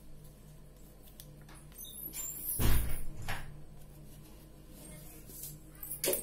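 Sky-blue paper being handled and folded on a wooden table: soft rustling, with a loud thump and crinkle about two and a half seconds in and a shorter one just after, and a sharp rustle near the end as the piece is laid flat. A faint steady hum runs underneath.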